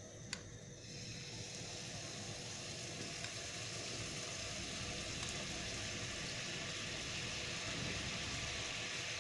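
Honey poured onto peanut butter in a hot nonstick frying pan, sizzling softly, the hiss building gradually as more honey goes in. A light click comes just before the hiss starts.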